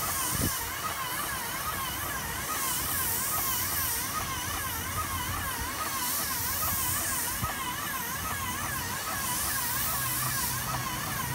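Paint spray gun hissing in repeated passes, swelling for about a second every few seconds as the primer is sprayed. Under it runs a steady warbling tone that rises and falls a couple of times a second.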